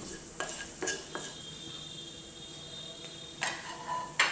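A wooden spatula knocking and scraping against a metal kadhai, three sharp knocks in the first second or so and a louder clatter near the end, while cumin and ajwain seeds fry in hot oil with a faint sizzle.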